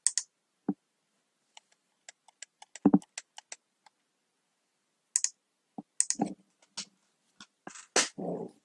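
Typing on a computer keyboard: irregular key clicks, with a few heavier key strikes about 3, 6 and 8 seconds in.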